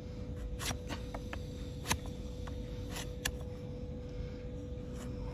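Irregular sharp clicks and snaps of hoof-trimming tools cutting into a donkey's hoof, the loudest about two seconds in, over a faint steady hum.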